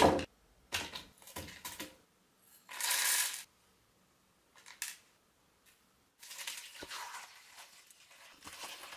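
Stock vegetables and herbs being dropped by hand into a non-stick pan: a few light knocks and a short rustling burst. About six seconds in, water starts pouring steadily from a glass measuring jug into the pan.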